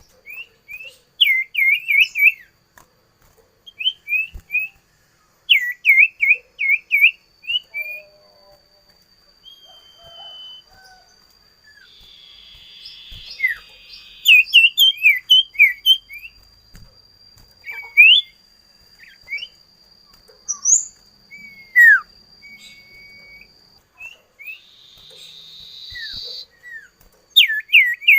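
A songbird chirping in quick runs of four or five short, sharp notes, with pauses and single calls between the runs.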